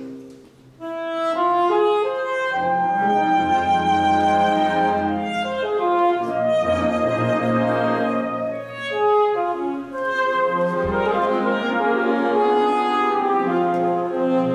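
Alto saxophone soloist with a wind band playing a czarda. A held chord breaks off just after the start, and after a short pause the band comes back in, with a moving melody over changing chords.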